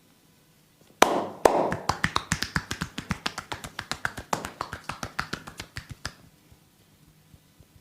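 Massage percussion: a rapid run of sharp hand slaps on the body, about seven a second, starting with a loud hit about a second in and stopping abruptly some five seconds later.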